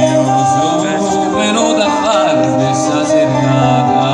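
Live folk music: a man singing over steady, held accordion chords.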